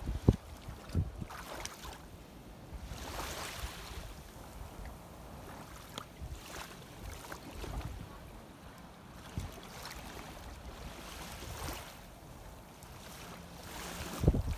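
Shallow sea water sloshing and lapping, with washes that swell and fade every few seconds. Wind buffets the microphone in low rumbling gusts just after the start and again near the end.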